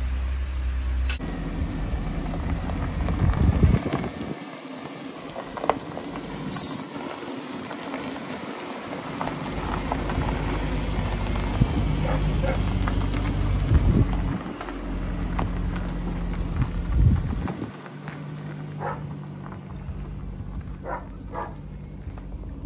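Nissan 180SX's engine running and revving up and down, with tyres crunching over gravel and a short sharp hiss about seven seconds in.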